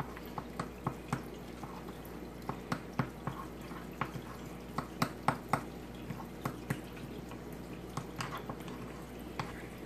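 A fork stirring brown gravy powder and pan juices in a small glass bowl: irregular light clicks of the fork against the glass, a few each second, with wet stirring sounds of the thick mix.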